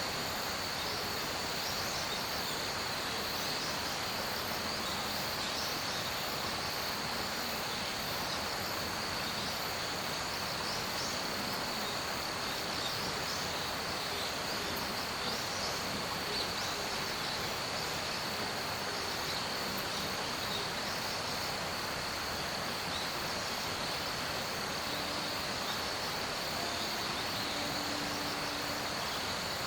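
Steady chorus of insects in a forest: a constant high-pitched shrill with a faint, regular pulsing chirp above it, over a soft outdoor hiss.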